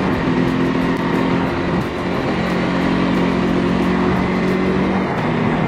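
Motorcycle engine running at a steady cruising speed, its pitch holding level, under a constant rush of wind and road noise on the camera's microphone.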